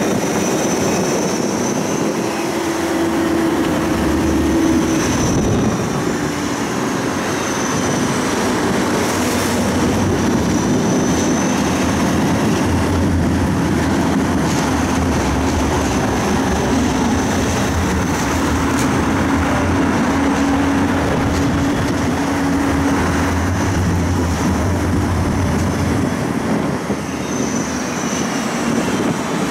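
Siemens Combino tram running along the street, heard from inside the passenger cabin. A steady rumble of wheels and running gear is joined several times by a faint high whine that rises and falls.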